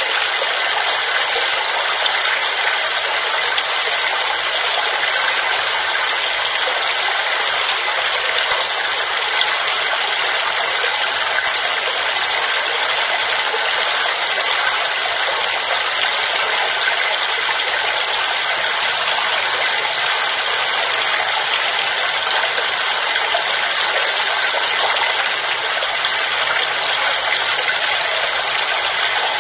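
Waterfall: water pouring and splashing in a steady, even rush, mostly high hiss with almost no low rumble.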